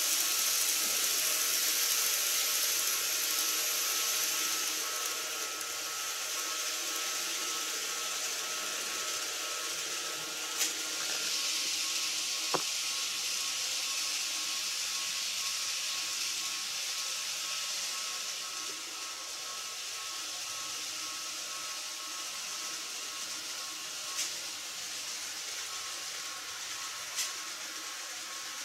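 Model electric trains running on the layout track: a steady rolling hiss of wheels on rail with a faint motor whine, slowly fading. A few sharp clicks sound over it.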